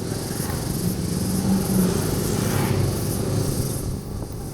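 A motor vehicle engine running on the road, growing louder through the middle and dropping back shortly before the end.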